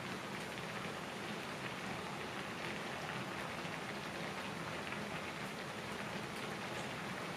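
Udon broth boiling in a thin aluminium pot on a portable gas stove: a steady bubbling with faint scattered pops.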